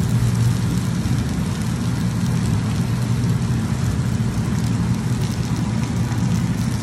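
Sliced onions, peppers, aubergine and zucchini frying in oil in a pan: a steady sizzle over a constant low hum.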